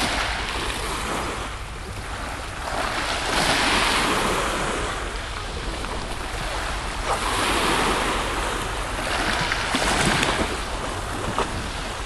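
Small waves on a calm sea washing in, swelling and fading every few seconds, with wind on the microphone.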